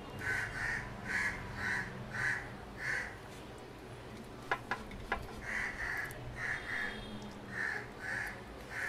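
Crows cawing: short calls about two a second in three bouts, with a few sharp clicks about halfway through.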